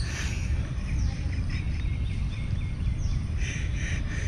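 Birds chirping over a steady low rumble: a quick run of short chirps a little over a second in, then a louder burst of calls past three seconds.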